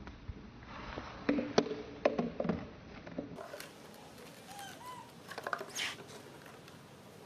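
A hollow plastic bottle knocking and clattering against hard dirt ground in a quick run of uneven taps as a baby macaque carries and drops it. Later there are a few faint short squeaks and clicks.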